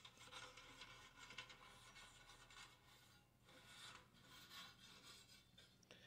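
Faint, irregular scratchy strokes of a soft brush sweeping dust off the sheet-metal inside of a vintage space heater.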